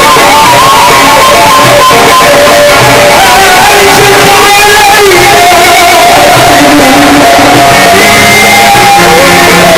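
Live Egyptian Sufi inshad: a male munshid's ornamented chanting, amplified through a microphone, over a band with a plucked string instrument and frame-drum beats. The melody wavers and turns in small ornaments, and the whole is loud.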